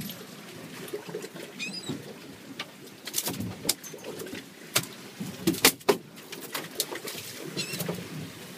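Gulls giving short calls twice, about two seconds in and again near the end, over a rough rush of wind and water. Sharp knocks and clatter on the boat come through the middle, the loudest a little past halfway.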